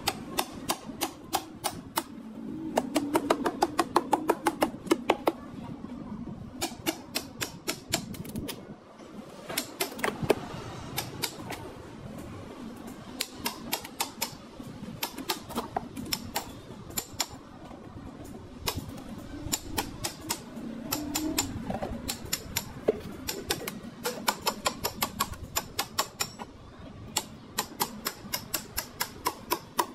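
Small hammer tapping a chisel along the lid seam of a plastic lead-acid battery case to cut the lid off. The taps are light and sharp, about five a second, in runs with short pauses between them.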